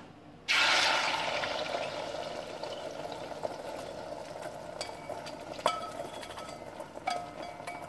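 Beaten eggs hitting smoking-hot avocado oil in a stainless steel frying pan: a sizzle that starts suddenly about half a second in and slowly dies down. A few light taps sound in the second half.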